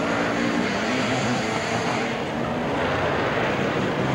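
Motocross sidecar outfit's engine running hard, its pitch wavering up and down as the throttle changes, over the steady noise of other race engines.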